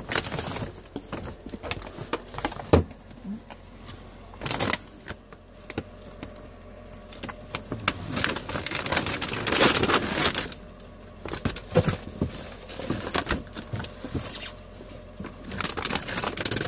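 A large plastic cat food bag being handled, crinkling and rustling with irregular clicks and a few louder crackling bursts.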